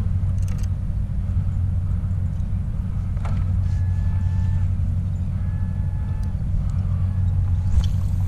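Steady low rumble of open-air noise on a small action camera's microphone on a drifting kayak at sea, with a few faint short tones around the middle.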